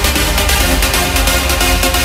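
Uplifting trance music with a steady electronic beat under held synth chords and a strong bass.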